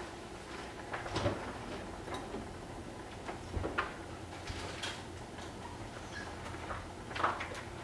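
Scattered light clicks and knocks of a refrigerator door being opened and a carton of creamer lifted out, over a low steady hum.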